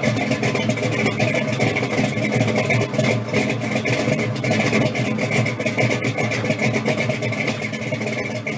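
Car engine idling steadily with a fast, choppy exhaust pulse and a steady high tone over it.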